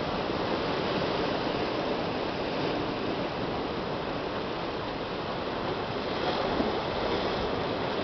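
Ocean surf surging into a narrow rock channel and churning through it as foaming white water: a steady, continuous rush with no single sharp crash.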